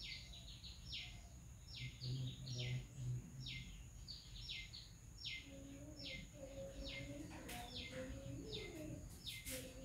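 A bird chirping over and over in short, high notes that each fall in pitch, about two a second.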